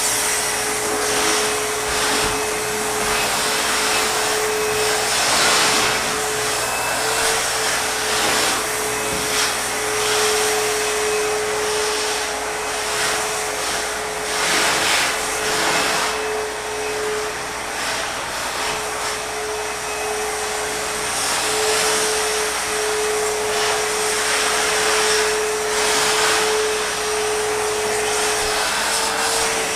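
Backpack vacuum cleaner running, a steady motor whine over a rushing airflow hiss that swells and fades every few seconds.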